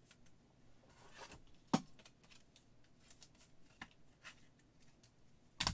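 Faint rustling and clicking of trading cards being handled, with a sharp click about 1.7 s in and a louder clack near the end.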